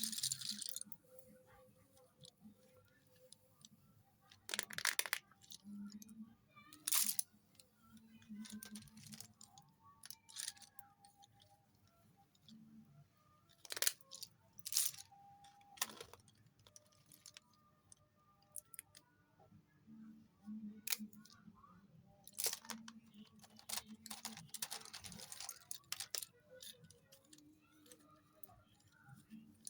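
Slate pencils handled close to the microphone: scattered sharp snaps and clinks at uneven intervals, with a few short stretches of crumbling or rustling.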